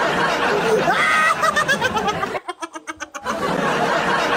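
Two men laughing hard, with a rapid run of ha-ha-ha pulses a little past halfway.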